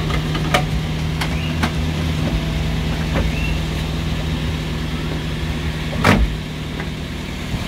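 Daihatsu Gran Max's 1.5-litre four-cylinder engine idling steadily. Over it come a series of sharp clicks and a louder clunk about six seconds in, as the front seat and the engine cover beneath it are unlatched and raised.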